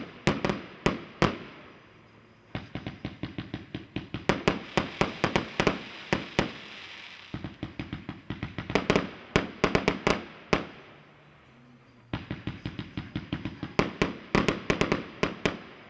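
100-shot, 1.2-inch firework cake (TXB555) firing: rapid sharp pops and bangs, several a second, in volleys broken by short pauses of about a second.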